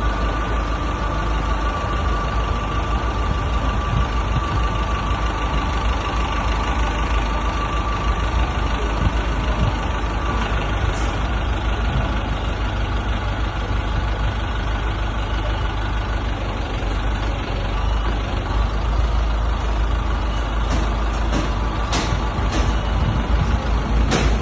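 A heavy construction machine's diesel engine runs steadily throughout. A few sharp knocks come near the end, from demolition of the covered bazaar's iron roof structure.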